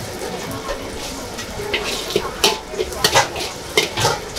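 Metal cooking utensils clinking and scraping against a pan, with a run of sharp clinks in the second half, over a steady sizzle of frying.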